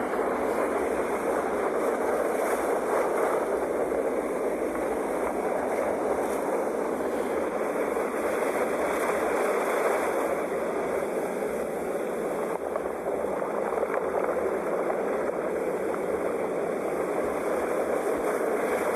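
Sea waves washing on a shore: a steady rush of surf that swells and eases slightly, with no single crashes standing out.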